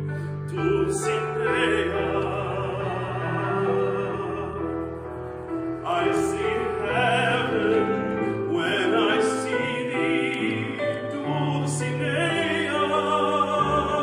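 A man singing in an operatic style, holding long notes with vibrato, over sustained instrumental accompaniment.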